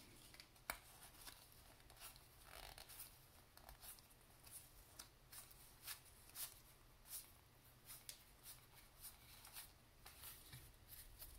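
Faint, irregular soft flicks of cardboard trading cards being thumbed one at a time off a stack onto another, roughly one or two a second.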